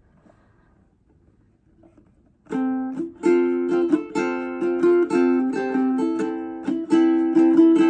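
Ukulele played, starting about two and a half seconds in with a steady run of plucked and strummed chords after a faint shuffle.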